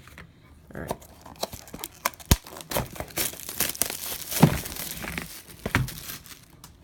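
Plastic packaging crinkling and tearing as a sealed box is unwrapped by hand, with irregular crackles and a sharp click a little over two seconds in.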